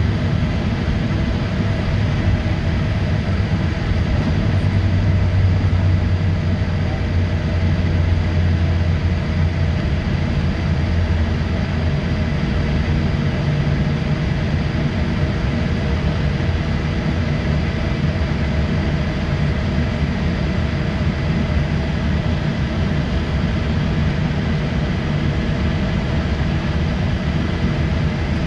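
Boeing 787-8 cabin noise during the takeoff roll: the Rolls-Royce Trent 1000 engines at takeoff power over a steady low rumble, heard from inside the cabin. A few steady whining tones sit above the rumble.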